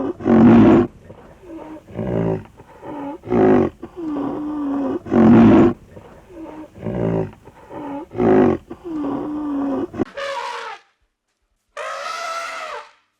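Loud, harsh animal calls repeated about once a second, some louder than others; about ten seconds in the sound cuts to a different recording with two higher, clearer calls.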